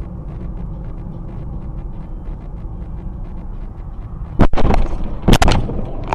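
Steady road noise inside a moving car, then a collision on a dashcam recording: two very loud crashing bangs about a second apart, with a shorter bang near the end.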